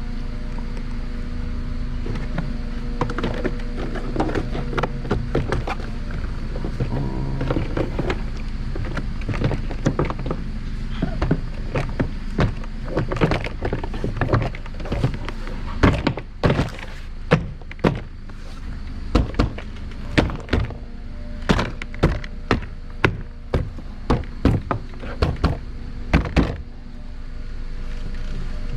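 Clicks and knocks from a car door's plastic panel and wiring being handled, coming as a run of sharp separate knocks in the second half, over a steady low hum.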